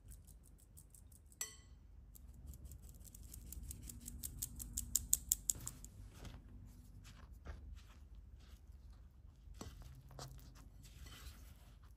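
Wire whisk beating a batter in a glass mixing bowl: a quick, rapid clicking of the wires against the glass that is loudest about five seconds in, with one ringing clink of the glass about a second and a half in.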